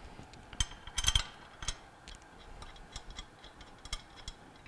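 Steel bolts clicking and tapping as they are handled and started by hand into the flange holes of a Bell & Gossett Series 80 pump's volute, with a quick cluster of clicks about a second in and lighter scattered ticks after.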